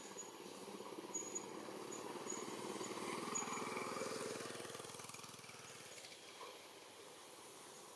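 A motor vehicle's engine passing at a distance, a buzzing drone that swells to its loudest a few seconds in and then fades away.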